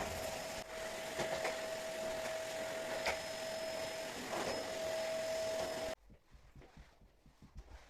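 Vacuum cleaner running with a steady whine and rush of air, a few knocks over it, cutting off suddenly about six seconds in. Faint light thumps follow.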